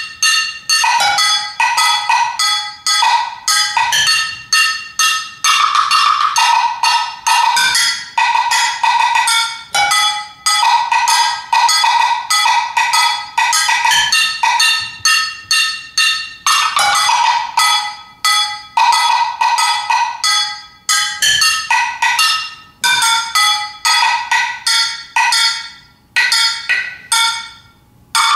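Solo multiple percussion: metal objects struck rapidly with sticks in a dense, driving, irregular rhythm, each hit ringing with bright metallic overtones. The playing breaks off briefly a few times, longest near the end.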